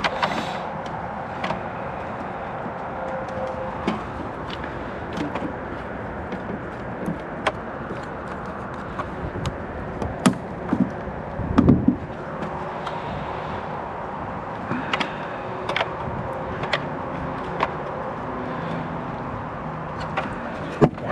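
Scattered plastic clicks and taps as a taillight bulb socket is fiddled into its housing, lined up and twisted to seat it, over a steady outdoor background hiss. A cluster of louder knocks comes a little past halfway.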